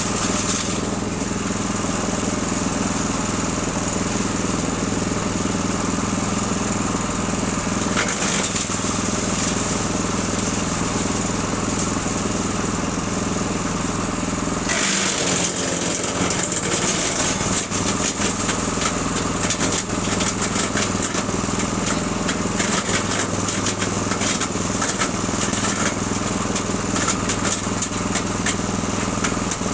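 The 6.5 hp engine of a Breckner wood chipper running steadily at speed. The rushing noise above it changes twice, about a third and halfway through.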